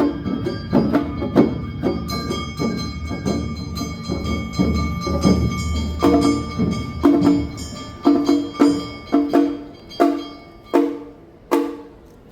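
Awa Odori festival band music (narimono). Sustained melody tones ring over a dense drum beat. About halfway through, the beat thins to separate ringing percussion strikes, roughly two a second, growing quieter toward the end.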